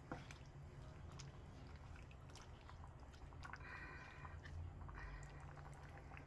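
Faint clicks and soft wet scraping of a wooden spatula stirring chicken pieces in sauce in a stainless steel pan, over a steady low hum.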